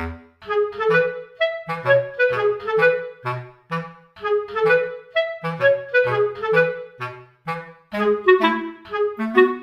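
Background music: a light instrumental tune of short, bouncy notes over a bass line, without a pause.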